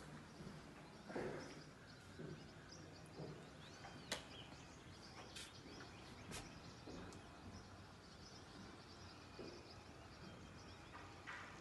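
Faint open-air ambience with a few distant bird chirps, broken by several sharp clicks, the loudest about four seconds in.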